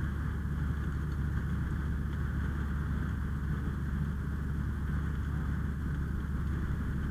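Vehicle engine running at a steady idle, a low, even hum with no change in pitch or level.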